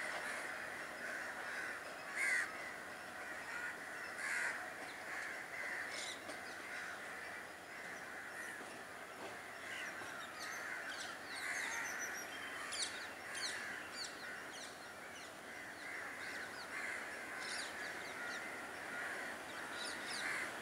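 Crows cawing again and again, with brief high chirps from smaller birds in between.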